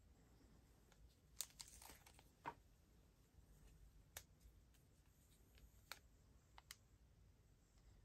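Faint handling sounds of sunglasses being taken out of a cloth pouch: a cluster of light clicks and plastic-film crinkles in the first few seconds, then a few single clicks of the metal frame.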